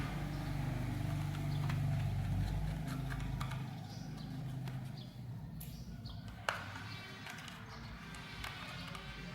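Small clicks and taps of laptop parts being handled while an SSD is fitted, with one sharp click about six and a half seconds in. A low hum runs under the first few seconds, then fades.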